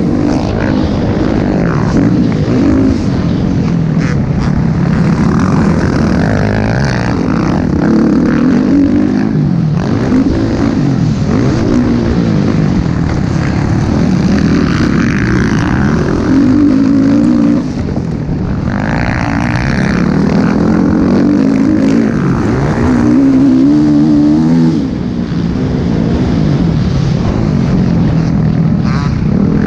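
Motocross dirt bike engine heard from on board at race pace, its revs rising and falling again and again as the bike accelerates and backs off around the track.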